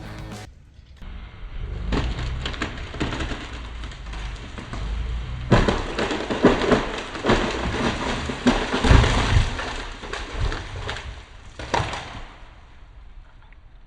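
Dead ash tree coming down: repeated cracking and snapping of wood and branches, building in the middle, with a heavy thud of the trunk hitting the ground about nine seconds in.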